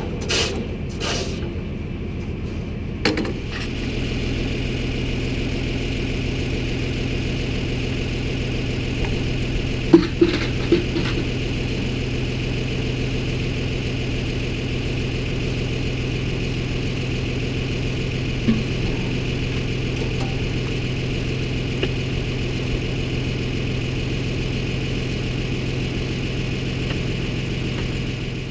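Tractor engine idling steadily, with a few scrapes and knocks in the first seconds and a short cluster of knocks about ten seconds in.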